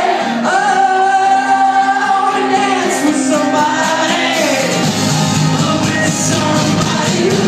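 Live rock band playing with singing, heard from among the audience. Long held sung notes over guitar at first, then the band fills in fuller with bass and drums about five seconds in.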